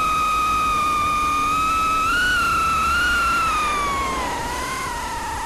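Brushless motors and propellers of an Eachine Lizard 105S micro FPV racing quad whining in flight: a steady high tone that sags in pitch about four seconds in, then starts to climb again. The pilot hears a vibration in this flight, which the uploader puts down to a chassis assembly fault.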